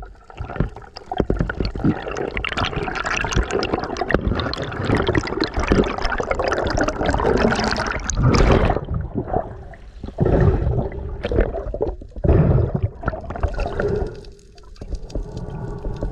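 Water rushing and bubbling around an action camera as a spearfisherman swims and dives, with many small clicks and knocks; it surges and eases several times.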